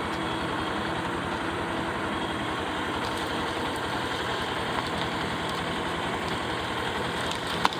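An engine running steadily at one even speed, with a low, regular pulsing.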